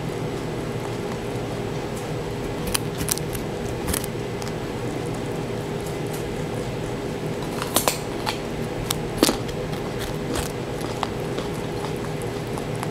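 Rabbit crunching on a carrot: irregular crisp bites, several in quick clusters, the loudest about two-thirds of the way through, over a steady background hum.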